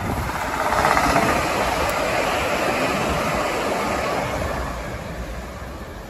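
A Great Western Railway Intercity Express Train passing through the station at speed. Its noise builds about a second in, holds steady, then fades away near the end.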